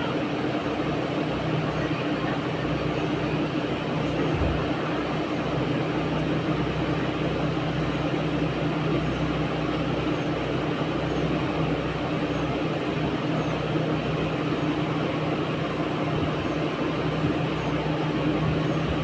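Steady mechanical hum over a constant hiss, even in level and pitch throughout.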